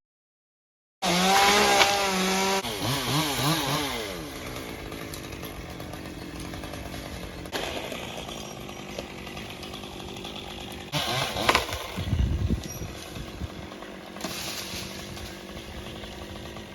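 Gasoline chainsaw cutting big maple trees, its engine revving up and down loudly after about a second of silence. It settles into a quieter steady running, then revs hard again about eleven seconds in, with a low thud just after.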